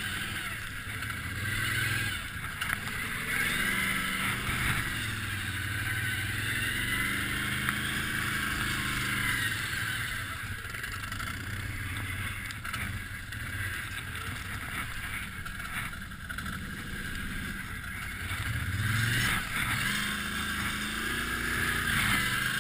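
Can-Am ATV engine running under load, its revs rising and falling, as the quad churns through deep muddy water with continuous splashing.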